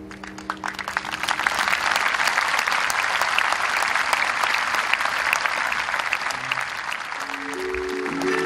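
Audience applauding: a few scattered claps at first, quickly building into steady applause. Instrument notes come back in near the end.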